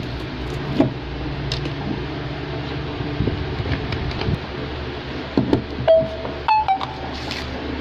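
Steady low background hum with a few light knocks from a spool of solder wire being handled and set down on a tabletop, and a few brief pitched pings a little after the middle.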